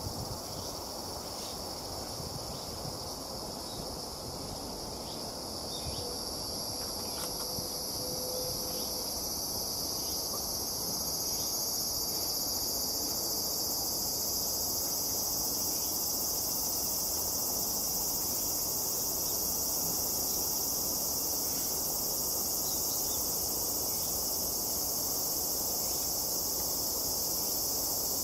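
A steady, high-pitched chorus of insects, growing louder about ten seconds in, over a low background hum of outdoor noise.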